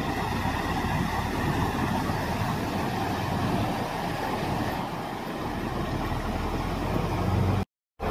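Flash-flood water rushing steadily across a desert wadi, with the low rumble of vehicle engines as trucks and pickups drive through the flood. The sound drops out completely for a moment near the end.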